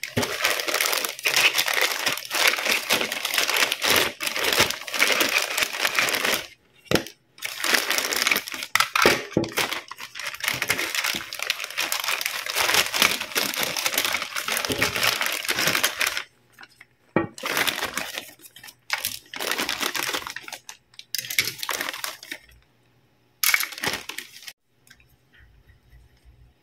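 Clear plastic packaging bag crinkling as hands handle it and pull it open. The crinkling is unbroken for about sixteen seconds, then comes in shorter bursts, and stops a couple of seconds before the end, leaving only faint sounds.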